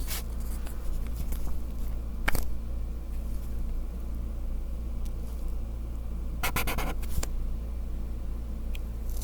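Handling of a Copic Wide marker and its plastic cap: a few sharp taps, then a short crackly clatter about six and a half seconds in, over a steady low hum.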